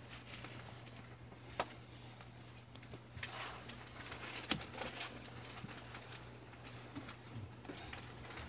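Steady low hum inside a stopped commuter train waiting at a platform with its doors shut, with a few small clicks and a brief rustle; the sharpest click comes about four and a half seconds in.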